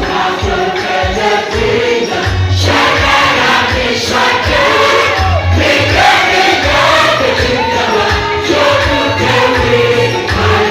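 Live worship music: a group of voices singing together over a band, with a steady beat of low drum strokes.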